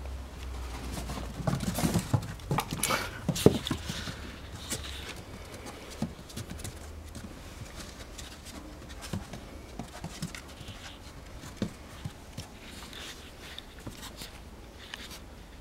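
Norrbottenspets puppy and a cat scuffling on wooden deck boards: a run of loud knocks and scrapes in the first few seconds, then scattered lighter taps and scratches as they wrestle.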